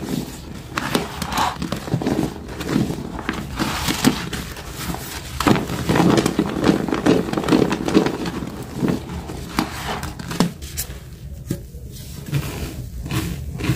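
A sponge scrubbing through thick soapy suds: wet, irregular scrubbing strokes. About ten seconds in the scrubbing stops and a few light taps and clicks follow.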